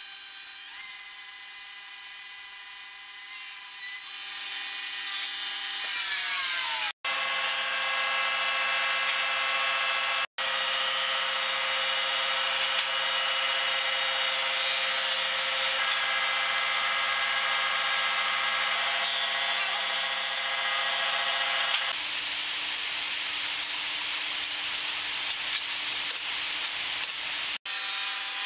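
Electric trim router running and cutting into pine boards, a steady high motor whine with many overtones and the rasp of the bit in the wood. The pitch climbs about a second in as the motor comes up to speed, then slides down a few seconds later as it spins down. After that the router runs steadily again in separate edited takes.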